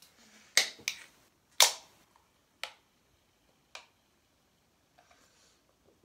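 A screwdriver jabbed into a shaken aluminium soda can, followed by the can being opened for shotgunning: a few sharp metallic pops and clicks, the loudest about a second and a half in with a short fizzing hiss, then two lighter clicks.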